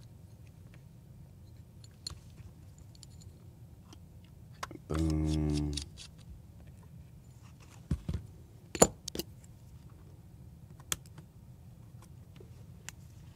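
Small repair tools and the parts of a Sony A7V camera body clicking and tapping as the top cover is worked loose: scattered light clicks, with a sharper cluster about eight to nine seconds in.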